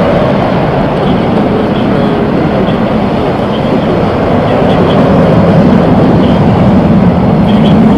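Airbus A330-200's twin turbofan engines at takeoff power: a loud, steady jet roar with a deep rumble, easing slightly and then building again about halfway through.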